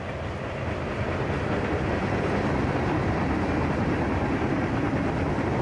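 Freight train of tank cars rolling past on the tracks: a steady noise of wheels running on rail.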